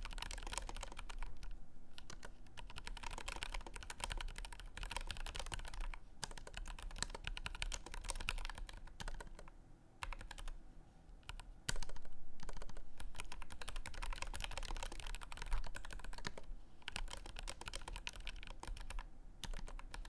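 Typing on a Kinesis Form split-touchpad keyboard: a fast, steady run of crisp key clicks, with a brief pause about ten seconds in.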